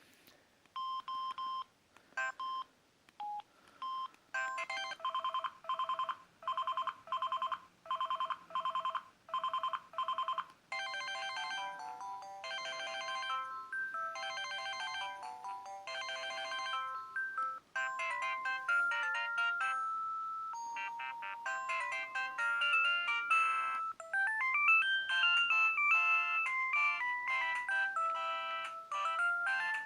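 Samsung C300 mobile phone playing its preloaded ringtones one after another: a few short beeps, then a rapidly pulsing ring pattern, then a series of electronic melodies, with a new tune starting every six or seven seconds.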